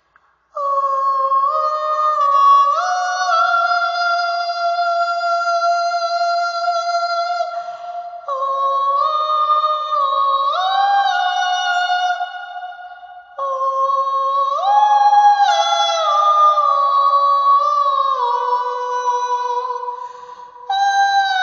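Soprano voices singing long held notes in layered harmony, without accompaniment. The pitches step up and down together, in four phrases that each start abruptly.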